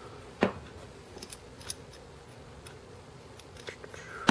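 Small steel parts of a 6.35mm (.25 ACP) pocket pistol clicking as the barrel is fitted back into the slide. There is one sharp click about half a second in, a few faint ticks, and then several more clicks near the end.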